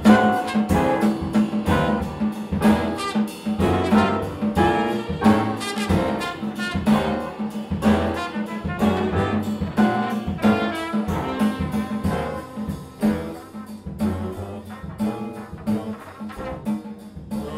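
Big band jazz: brass and saxophones playing with a drum kit, in the late part of a trumpet solo. Many short, quick notes over a steady pulse of drum strokes.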